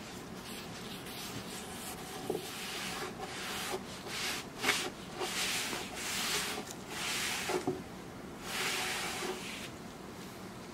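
A rag rubbed back and forth over a cypress wood slab, wiping on penetrating epoxy to seal it: a series of rubbing strokes about one a second that stop shortly before the end.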